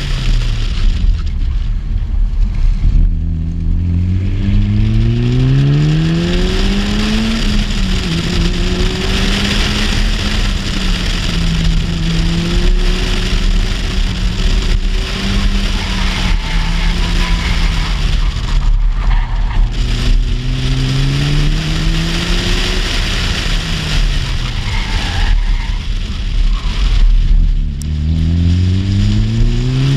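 Car engine accelerating hard, its pitch climbing in long rises, holding steady, then easing and climbing again near the end, with wind rushing over the microphone.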